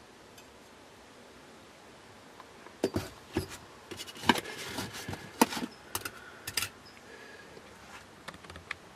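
Steel parts of a disassembled locking differential clinking and knocking as they are handled and set down. A quick cluster of sharp metallic clinks starts about three seconds in, a few of them ringing briefly.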